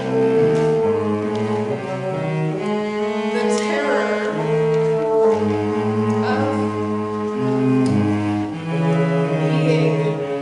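Bassoon and cello playing together, two lines of held notes moving step by step.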